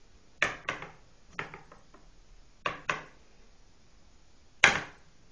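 Several sharp knocks and clatters of a small hard object on a hard floor, some in quick pairs like a bounce, the loudest near the end: a paint brush being tossed and dropped in a game of fetch with a cat.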